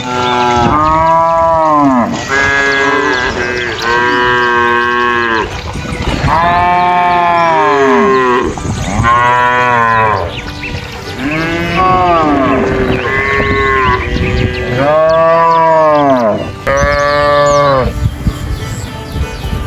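Cattle mooing: a series of about eight long moos, one after another with short pauses, each rising and then falling in pitch.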